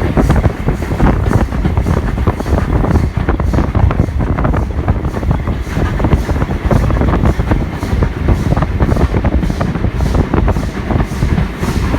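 Wind buffeting the microphone over the running rumble of a moving heritage train, heard from on board.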